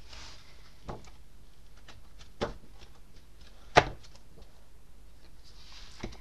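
Pages of a large hardcover book being turned by hand: soft paper swishes and a few sharp taps as pages fall flat, the loudest a little under four seconds in.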